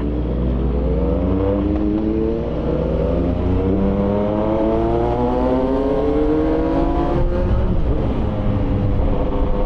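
CFMOTO 675SR-R's inline three-cylinder engine accelerating hard through the gears. Its pitch climbs steadily and drops back at upshifts about two and a half and seven seconds in.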